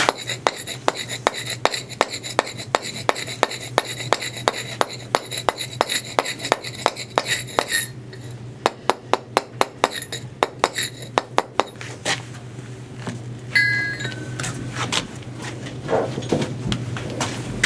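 Mallet tapping a chisel against a stone block, light quick blows at about three to four a second, dressing the chamfer face to take down high spots. The tapping stops about eight seconds in, comes back in a short run, then gives way to a few scattered knocks.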